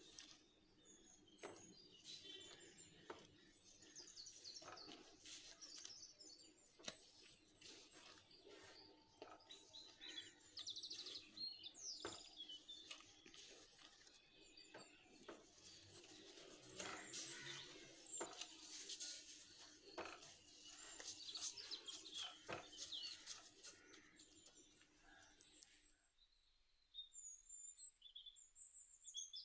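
Faint soft squelches and taps of sticky bread dough being lifted and folded by gloved hands in a glass bowl, with birds chirping in the background throughout. A low steady hum underneath cuts off near the end, leaving only the bird chirps.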